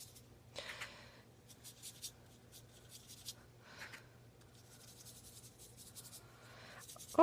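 Faint, scattered scratching and rubbing of hands working over a desk, over a low steady hum.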